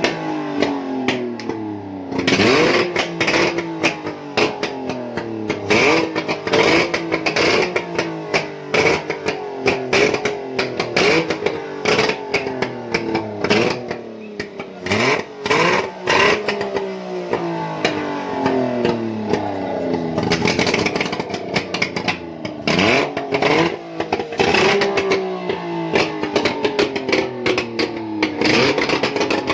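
Engine running out of the car, its throttle blipped again and again so the revs jump up and fall back every second or two, with sharp clicks and knocks over the top. It is being run to check for connecting-rod knock.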